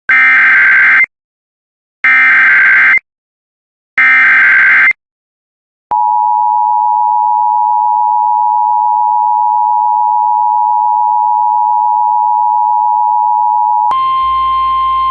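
Emergency Alert System signal: three one-second bursts of SAME header data, a second apart, as a harsh warbling screech, followed by about eight seconds of the steady two-tone EAS attention signal. Near the end the attention signal gives way to a single, slightly higher steady tone.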